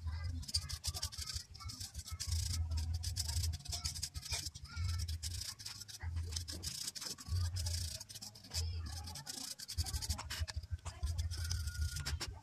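Stiff-bristled brush scrubbing dust off a plastic PC power-supply cooling fan, a rapid run of scratchy strokes.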